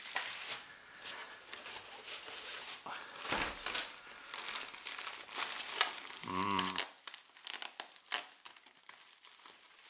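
Plastic bubble wrap crinkling and rustling in irregular crackles as wrapped packs are handled and lifted out of a cardboard box, with a brief voice sound about six seconds in.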